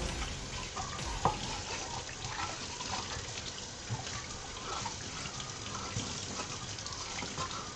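Kitchen faucet running steadily into a stainless steel sink while a measuring cup is rinsed and scrubbed under the stream, with a few light knocks, the sharpest about a second in.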